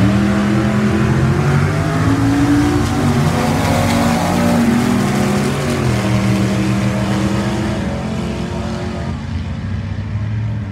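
Two drag-racing cars, a red first-generation Chevrolet Camaro and an old Dodge pickup, running hard side by side down the strip at full throttle. Their engines climb in pitch and drop back several times, then fade as the cars pull away near the end.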